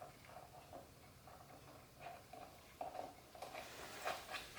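Faint clicks and taps of metal motorcycle wheel parts being handled and fitted by hand, with a quick cluster of sharper clicks near the end.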